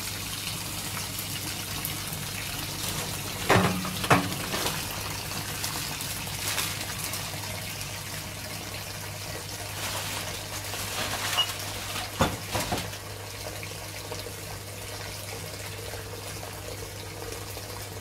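Kitchen tap running into a sink filling with washing-up water, with a few sharp clinks and clatters of cutlery and dishes.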